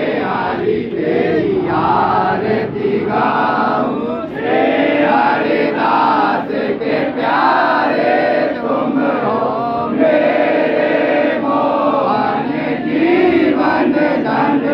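A crowd of worshippers chanting and singing an aarti hymn together, many voices overlapping without a break.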